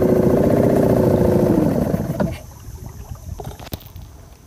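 A 2.5 hp boat engine running steadily, then shut off about two seconds in, its pitch sinking as it dies. After it stops, a few faint clicks and knocks remain.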